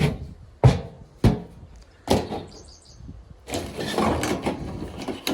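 Four sharp knocks over the first two seconds or so, then a longer run of rustling, clattering noise.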